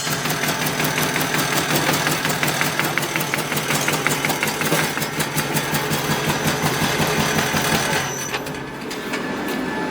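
SK-003S CNC wooden coffee stirring stick punching machine running, cutting wooden veneer into sticks: a fast, even train of punching strokes over a steady motor hum. It drops in level and the strokes thin out about eight seconds in.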